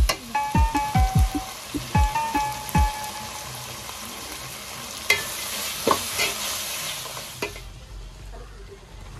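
Chicken and vegetables sizzling in a hot metal pot as they are stir-fried with a perforated metal spatula, with a few sharp scrapes and knocks of the spatula on the pot. Background music with a beat plays over the first few seconds. Near the end the sizzling cuts off.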